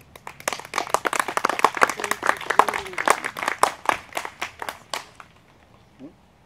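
A small audience clapping: a dense patter of hand claps that starts about half a second in, thins out and stops a little after five seconds in.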